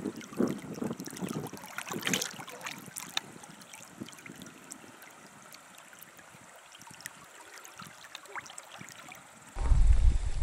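River water flowing faintly, with scattered clicks and rustles in the first few seconds. Near the end a sudden loud low rumble starts.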